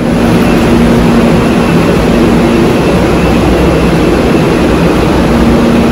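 Loud, steady roar of a road vehicle under way, engine drone mixed with road and wind noise.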